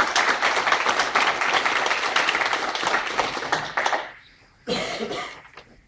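Audience applauding: a dense patter of many hands clapping that dies away about four seconds in, with a brief voice shortly after.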